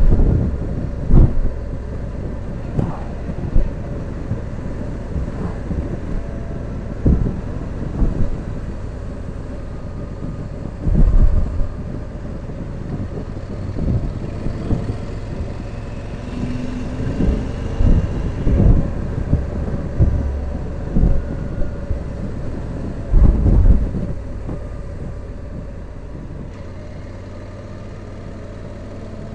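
Motorcycle engine running steadily while riding along a winding road, with irregular low thumps of wind hitting the microphone every few seconds. It eases off a little near the end.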